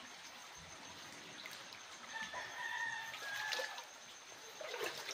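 A rooster crowing once: a long held call starting about two seconds in. A few knocks follow near the end.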